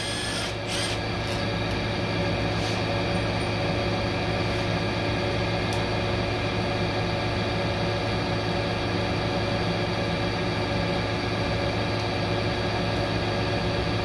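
Steady mechanical hum made of several constant tones, from machinery running in the workshop, with a few light clicks in the first seconds as transmission parts are handled.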